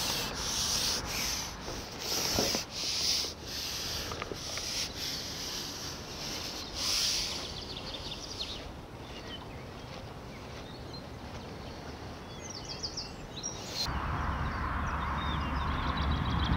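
Irregular rubbing and scraping strokes, about one or two a second, through the first eight seconds, then fainter. About fourteen seconds in, a steady low rumble of wind on the microphone sets in.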